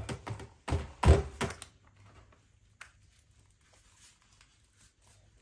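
Hands gathering slime out of a clear plastic tub, knocking and thumping against the plastic a few times in the first second and a half, the loudest about a second in.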